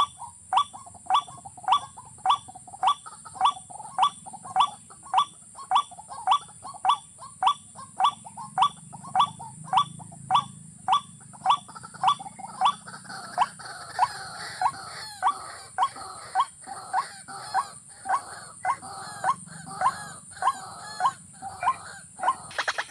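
Watercock calling: a long, evenly paced series of short upward-sliding notes, about two a second.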